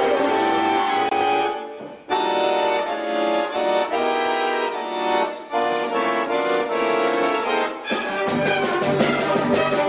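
Accordion playing held chords with a chamber orchestra, breaking off briefly about two seconds in. Near the end it switches to rapid repeated chords, about five a second.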